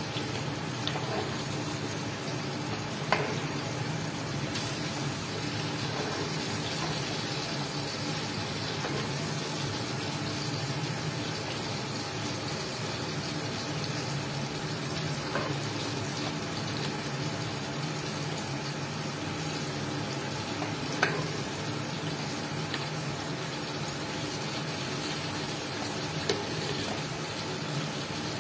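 Sambar rice bubbling and simmering in an aluminium pot, a steady liquid burble, with a few sharp clinks of a metal ladle against the pot.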